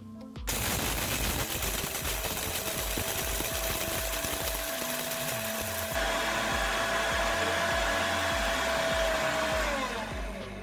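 Orpat 1200 W mixer grinder running at full speed, grinding dry turmeric (haldi) in its small stainless-steel jar: a steady motor whine over a rough rattling grind. It grows louder and brighter about six seconds in, then the whine falls in pitch as the grinder is switched off near the end.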